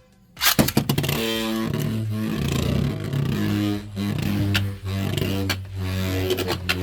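A Beyblade X top launched into a plastic stadium, starting with a sudden loud rip about half a second in, then spinning and grinding against the stadium with a steady whirring hum and sharp clicks as it strikes the walls.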